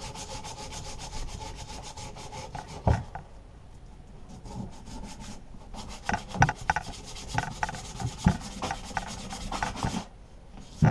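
Abrasive paper rubbing surface rust off a steel lawnmower part by hand: fast back-and-forth scratchy strokes, easing off a few seconds in, then resuming with several sharper knocks.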